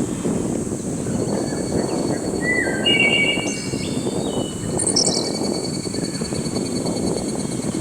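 Wild birds calling: clear whistled notes that step up and down in pitch a few seconds in, then a quick cluster of high chirps about five seconds in, over a steady low rumble of background noise.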